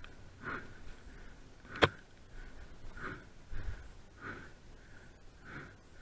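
A mountain-biker's hard, rhythmic breathing while riding, about one breath every two-thirds of a second, with a single sharp knock about two seconds in.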